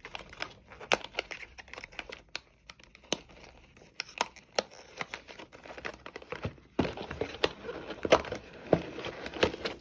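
Packaging crinkling and rustling, with scattered small clicks and taps as items are handled. It gets busier and louder about two-thirds of the way through.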